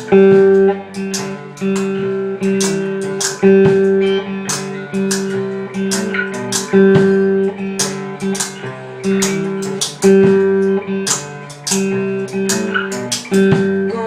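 Guitar playing a steady rhythm of plucked chords, with no singing: an instrumental passage of a song.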